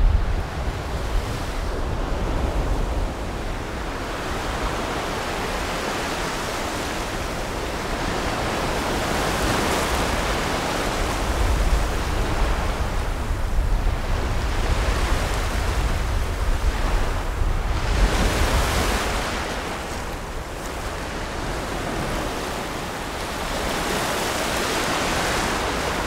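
Gulf surf breaking and washing up a shallow sandy beach, the rush of water swelling and easing wave by wave, with wind rumbling on the microphone.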